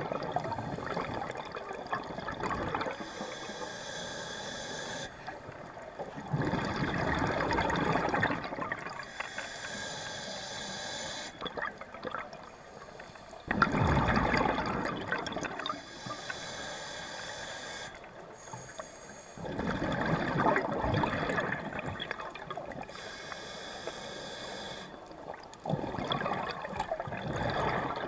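Scuba diver breathing through a regulator underwater. A rushing burst of exhaled bubbles comes about every six and a half seconds, five times, with the quieter hiss of each inhalation between them.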